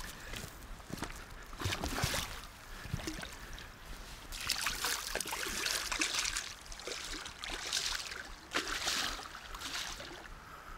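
Large hooked Atlantic salmon thrashing in shallow water at the river's edge, splashing in repeated bursts, the longest about four to six seconds in and another near nine seconds.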